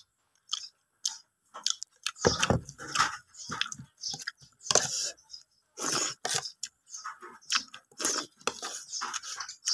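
Close-up mouth sounds of a man eating plain steamed rice with salt: wet chewing and lip smacking in short, irregular bursts with brief pauses between.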